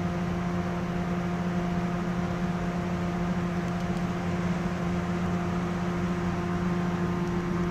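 Diesel engines of KiHa 28/58 railcars running steadily, heard from inside the attached KiSaHa 34 passenger coach as a low, even hum with a few held tones that do not change in pitch.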